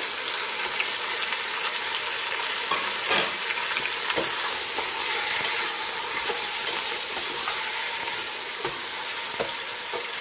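Chicken pieces sizzling in hot oil with onions and garlic in an aluminium pressure cooker, stirred with a wooden spatula; a steady sizzle with a few short knocks as it is stirred.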